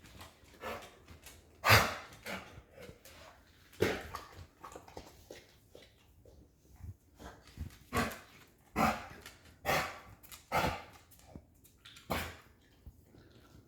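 A dog coughing in a string of sudden, harsh coughs, about eight of them at uneven gaps. The loudest comes about two seconds in.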